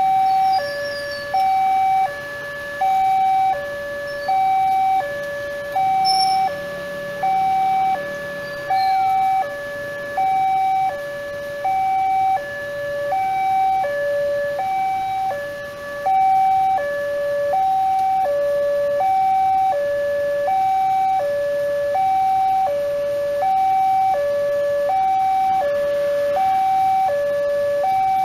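Railway level-crossing warning alarm sounding a two-tone electronic signal that steps evenly back and forth between a higher and a lower tone, warning road traffic that a train is approaching.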